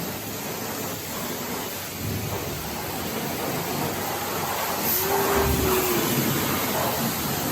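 Car wash pressure wand spraying water onto a pit bike, a steady hiss of spray, with a low rumble joining about five seconds in.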